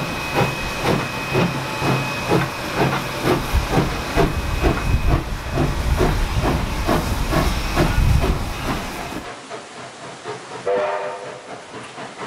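Steam locomotive No. 2705 working a train of carriages: steady exhaust chuffs, about two to three a second, over a hiss of steam. About nine seconds in the sound drops to a quieter, more distant take of the train with a brief pitched tone near the end.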